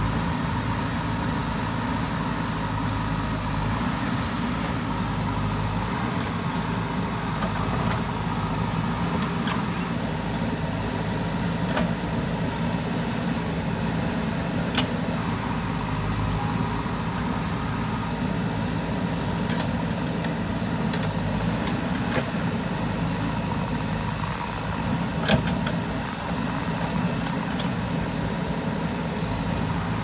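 Diesel engine of a JCB backhoe loader running steadily under work, with a few sharp knocks spread through.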